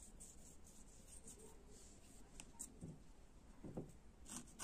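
Mostly near silence. Near the end, a felting needle starts stabbing repeatedly into wool, faint crisp pokes at about four or five a second.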